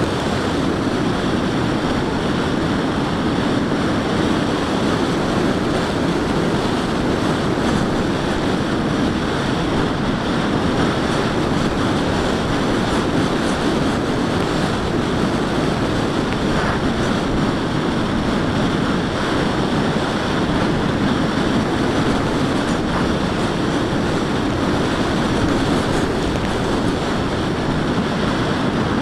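Steady rushing of air over the onboard microphone of a Zagi RC flying wing in flight, mixed with the run of its electric motor and propeller, even and unbroken throughout.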